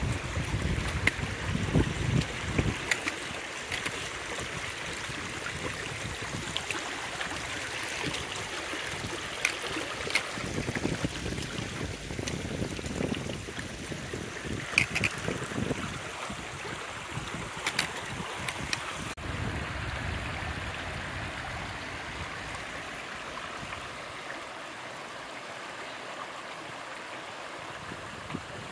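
Shallow water running over rocks across a trail, a steady rush, with a few sharp clicks scattered through it.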